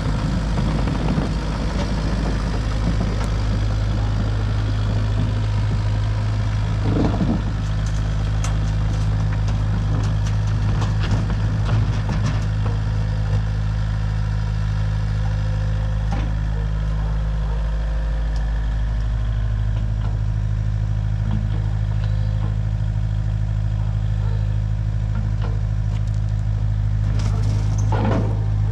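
An engine running steadily at a constant speed, with a few short knocks and rattles over it.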